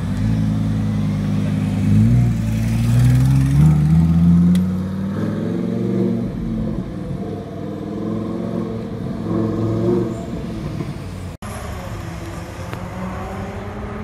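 Lamborghini Huracán V10 engine pulling away, its note climbing in pitch twice in the first few seconds as it revs up, then running lower and fainter as the car moves off.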